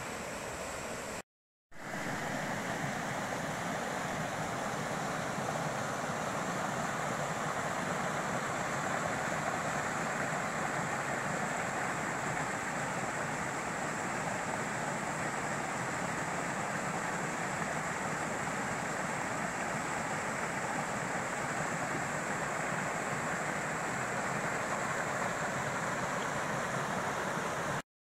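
Steady rush of falling and running water from Seneca Creek: the waterfall pouring into its pool, then after a short break the creek running over small rocky cascades.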